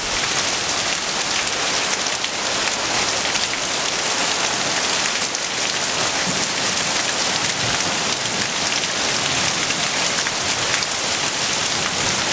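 Heavy rain falling steadily: a dense, even hiss of drops.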